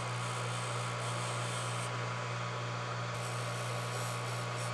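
Electric bench polisher running with a steady motor hum while a piston ring's gapped ends are deburred against it; a faint high hiss comes and goes twice as the ring edges are worked.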